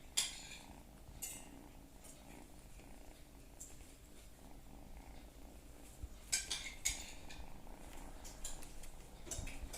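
Kitten purring steadily, with a few short scratchy rustles as it moves in a basket, the loudest a little over six seconds in.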